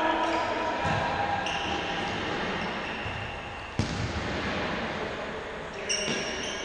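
Futsal ball being kicked and struck on an indoor court, with echoing thuds; the sharpest kick comes about four seconds in. Players' calls sound in between.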